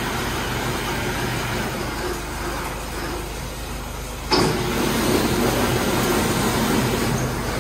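Ryko R-784 rollover car wash running, with a steady motor hum and the hiss of water spray. About four seconds in, the wraparound cloth side brushes start spinning against the car again, and the sound jumps suddenly louder and stays there.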